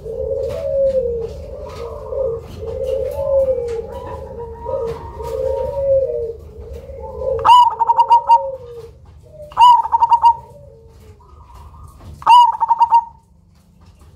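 Zebra dove (perkutut, black cemani variety) cooing: a steady run of rolling low coos, then three loud song phrases, each ending in a quick trill, spaced about two to three seconds apart in the second half.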